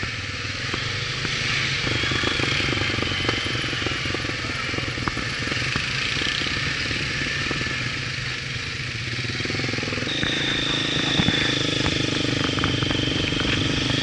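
Quad bike engines running steadily. About ten seconds in, the sound shifts and a steady high whine joins the engine.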